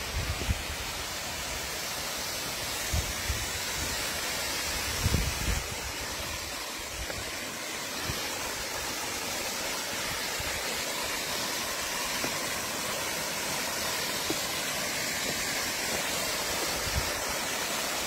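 Small waterfall spilling over a rock ledge into a pool: a steady rush of falling water that grows slightly louder. A few short low thumps near the start, in the first third, and near the end.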